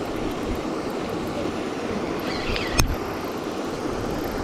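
Steady outdoor rushing noise, with a brief high chirp and then one sharp click a little under three seconds in.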